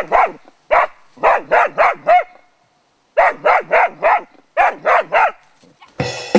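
Young English springer spaniel barking at a wild boar it is holding at bay: sharp barks in quick bouts of three or four, with a short pause between bouts. Music comes in near the end.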